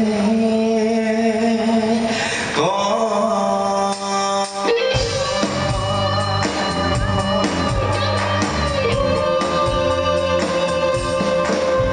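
A man singing into a microphone with a live band of electric guitars and drums. He holds long notes at first, and about five seconds in the drums and bass come in with a steady beat under the voice.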